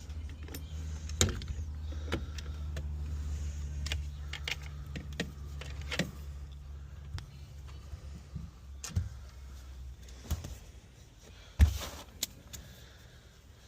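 Scattered clicks, rattles and knocks of hand tools and metal seatbelt parts as a front seatbelt buckle is unbolted and swapped, over a low steady hum that fades out about two-thirds of the way through. One sharper knock comes near the end.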